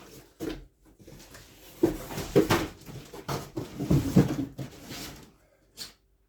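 Cardboard drum packaging being handled and pulled open by hand: irregular rustling and scraping with several knocks, busiest from about two to five seconds in.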